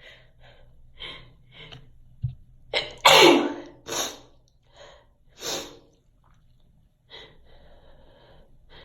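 A person sneezing: short, sharp breaths build up, then one loud sneeze about three seconds in, followed by a couple more forceful bursts of breath and quieter breathing.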